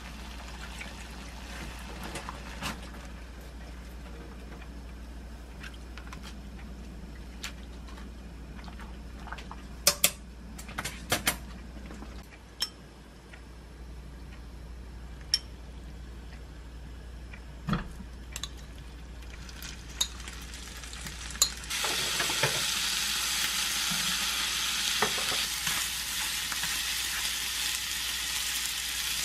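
Low steady hiss of a pot of water boiling on a gas stove, with scattered clinks of dishes and utensils. About two-thirds of the way through, slices of smoked duck go into a hot non-stick pan and start sizzling loudly as they are turned with chopsticks.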